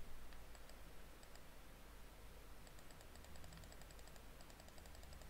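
Faint clicking at a computer: scattered small clicks, then quick runs of clicks through the middle, over a low steady hum.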